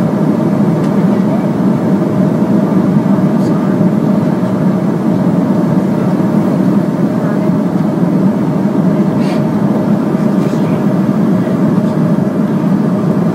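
Steady drone of a jet airliner's cabin in flight: engine and airflow noise, deep and even, with a faint steady hum and a few faint ticks.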